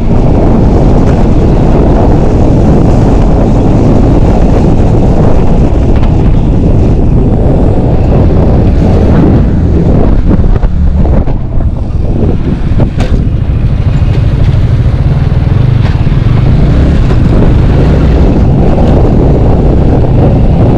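Motorcycle riding at speed: heavy wind rush on the camera microphone over the engine's note. The rush eases about halfway through as the bike slows, leaving a steadier low engine hum.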